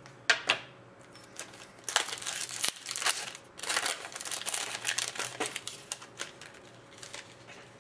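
The foil wrapper of an Upper Deck hockey card pack is torn open and crinkled by hand, with most of the crinkling about two to five seconds in.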